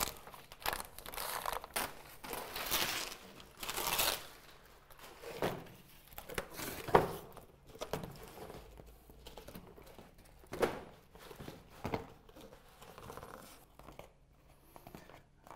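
Plastic backing strip being peeled off the butyl adhesive underside of Wakaflex lead-replacement flashing, crinkling and rustling in a series of pulls. It is loudest in the first few seconds, with quieter handling rustles and a couple of sharp knocks later.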